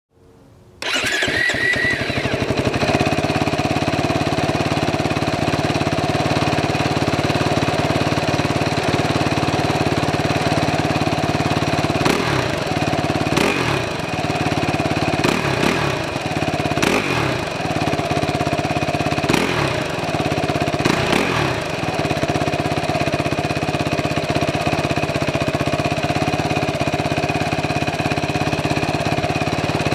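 2017 Suzuki RMX450Z's single-cylinder four-stroke engine starting cold about a second in through its stock exhaust and settling into a steady idle. Its note wavers briefly about six times midway.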